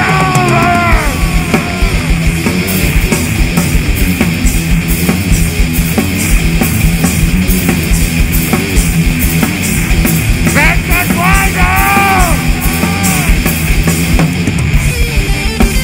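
A live heavy rock band playing loudly: distorted electric guitar over a drum kit with rapid kick-drum beats. High sliding notes rise and fall in arcs at the start and again about ten seconds in.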